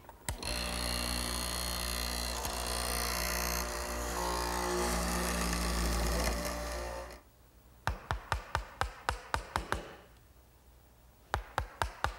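Benchtop hollow-chisel mortiser running steadily for about seven seconds as its chisel and drill bit plunge into a sinker-pine table leg, then shutting off. Then quick light taps, about four a second, in two runs: a mallet driving a bench chisel to clean out the mortise.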